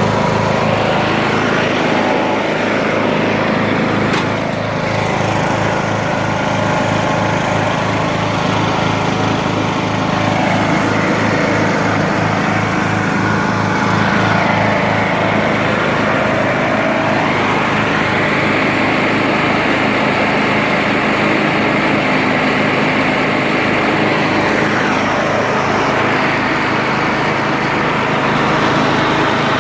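2010 Troy-Bilt Pony riding lawn mower's engine running steadily, its pitch drifting up and down a few times, with a single sharp click about four seconds in.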